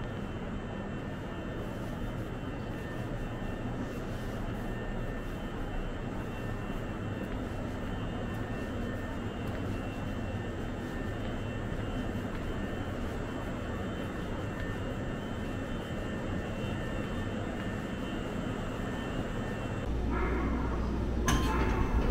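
Steady hum and hiss of a stationary Nagano Electric Railway 8500-series electric train, its onboard equipment running as it waits at an underground platform. About two seconds from the end a deeper rumble comes in and a few short tones sound.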